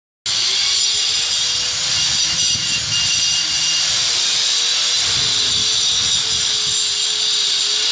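Handheld angle grinder with a cutting disc running while it cuts a groove into a brick wall for electrical conduit: a steady motor whine that wavers slightly in pitch as the disc bites, over a loud gritty hiss of the disc grinding through brick.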